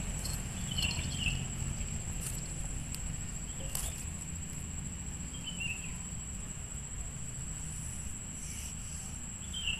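Steady high-pitched insect drone over a low background rumble, with a few short chirps and a single sharp click about four seconds in.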